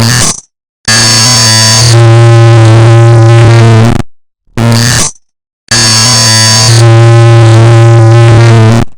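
A clock's tick-tock digitally stacked and distorted into a harsh, clipped, synth-like drone, very loud. It comes in blocks cut by dead silence: two short bursts of about half a second alternating with two long stretches of about three seconds each.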